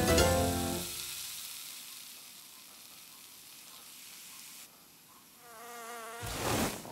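Cartoon bee buzzing with a wavering pitch as it flies about, followed by a loud, brief rush of sound about six seconds in. Before that, music dies away in the first second, leaving a faint airy background.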